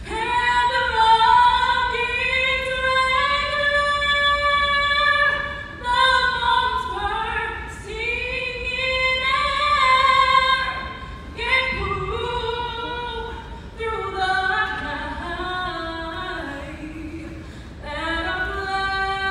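A solo female voice singing the national anthem unaccompanied, in long held notes that glide between pitches, with short breaths between phrases.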